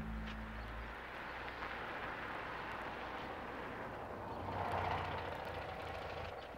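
A car approaching on a road, its engine and road noise building to a peak about five seconds in, then easing off.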